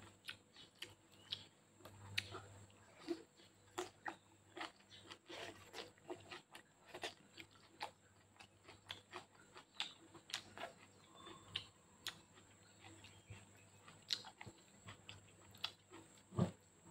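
Close-up mouth sounds of a person chewing spaghetti with raw leafy vegetables: a run of short, irregular clicks, one to three a second, with a louder short sound near the end.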